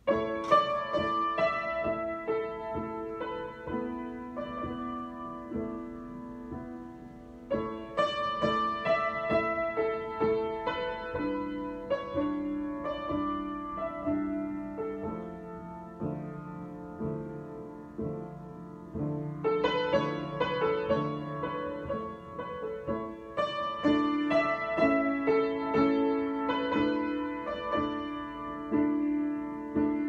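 Solo piano improvisation: chords and melody played by hand, starting with a struck chord. The playing grows louder about eight seconds in and again about twenty seconds in.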